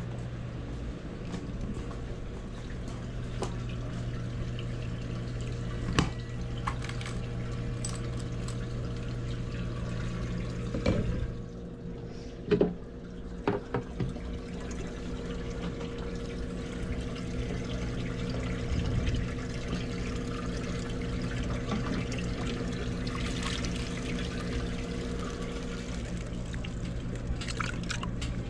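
Water bubbling and trickling in aerated live-bait minnow tanks over a steady electrical hum, with a few sharp knocks in the first half. Near the end, water sloshes as minnows are scooped with a net into a bucket.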